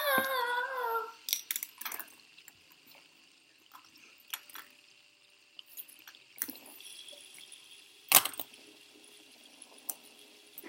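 A high, wavering vocal sound, like a child's, for about a second at the start, then scattered light clicks and taps of small hard objects being handled, with one sharper click about eight seconds in.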